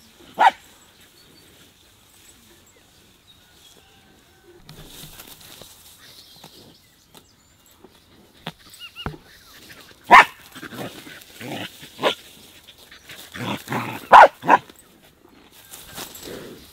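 A dog barking: one bark near the start, then a run of barks over the last several seconds, two of them close together and loudest.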